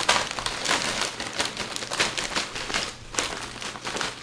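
A Lay's potato chip bag crinkling as chips are shaken out of it: irregular rustles and crackles, loudest right at the start.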